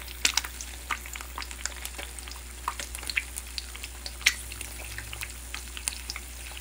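Eggs frying in oil in a Teflon non-stick pan: a steady sizzle with frequent irregular sharp pops and crackles.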